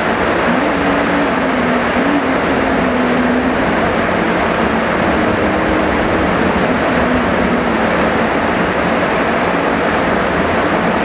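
Heavy rain falling in a steady, dense rush, with a faint low hum that wavers slightly in pitch beneath it.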